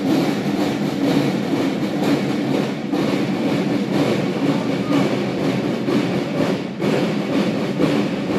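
Marching column of cadets, many boots tramping in step on asphalt, making a steady rumbling clatter.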